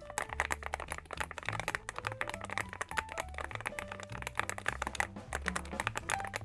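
Typing on a YUNZII AL66 aluminium gasket-mount mechanical keyboard: a quick, continuous run of key clicks, over soft background music.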